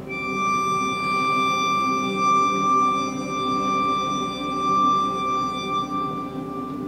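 Experimental ensemble music: a high, steady held note with bright overtones starts right at the beginning and holds, over a low chord of sustained tones.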